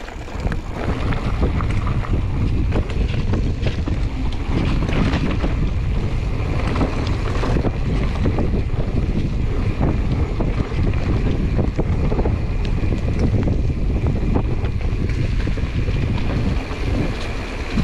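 Wind buffeting the microphone while a 2021 Giant Trance X 29 mountain bike rolls down a dirt trail at speed, its tyres on the ground and many small clicks and rattles from the bike over bumps.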